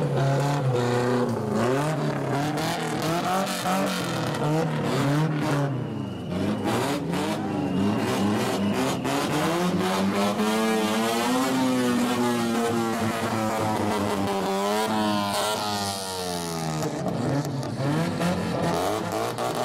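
Straight-piped exhausts of lowered classic Japanese cars, revved again and again as they roll past, the pitch swinging up and down with each blip of the throttle.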